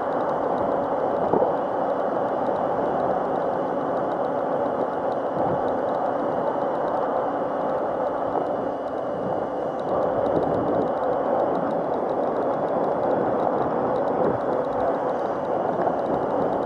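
Steady riding noise of a Razor MX500 electric mini dirt bike under way: a faint steady motor whine over a constant rush of wind and tyre noise, with road traffic alongside.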